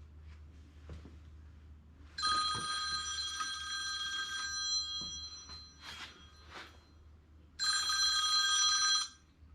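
A telephone ringing twice, each ring a bright cluster of steady high tones, the first about three seconds long and the second about a second and a half, with a few faint knocks between them.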